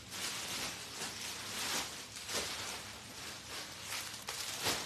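Rustling as clothes are handled, in several short bursts.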